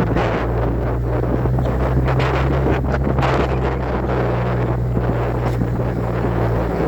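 A steady low engine hum with wind rushing and buffeting the microphone.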